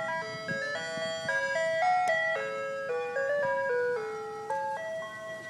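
Ice cream truck's chime tune: a simple electronic melody of held notes stepping up and down.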